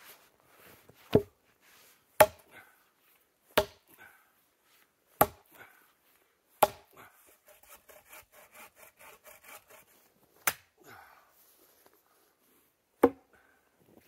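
Firewood being chopped: seven sharp wooden strikes spaced a second or two apart, with a short run of quick, light, even strokes partway through.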